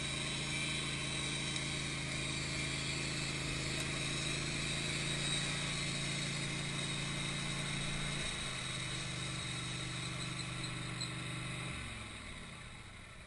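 Wood-Mizer LT15 band sawmill running steadily as its band blade cuts a slice off an oak cant; about twelve seconds in the engine winds down and the sound fades away.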